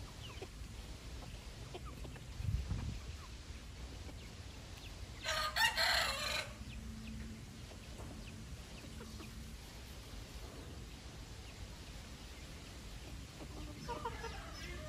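A rooster crows once, a short crow of a little over a second, midway through, the loudest sound. Scattered soft clucks from feeding chickens, a low thump about two and a half seconds in, and another chicken call near the end.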